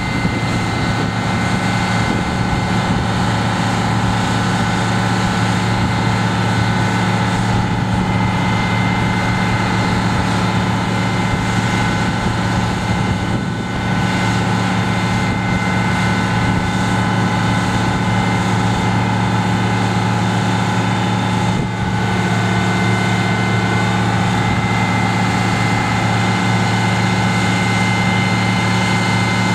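Aerial ladder fire truck's engine running steadily to drive the ladder hydraulics as the ladder is raised and extended, a low drone with a steady high whine above it.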